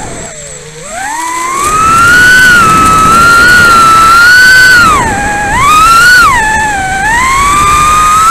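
Brushless motors and Gemfan 2540 propellers of a Leader 120 micro FPV quadcopter whining, heard from the camera on board. The pitch falls sharply as the throttle is cut about half a second in, then climbs back and rises and falls with the throttle.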